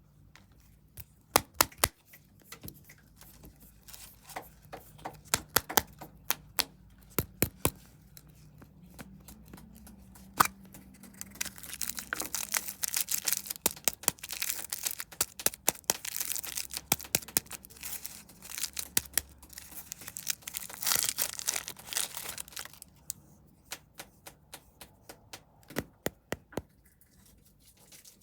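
Plastic snack wrappers being handled and torn open, with a stretch of dense crinkling and tearing in the middle. Scattered sharp clicks and taps come before and after it.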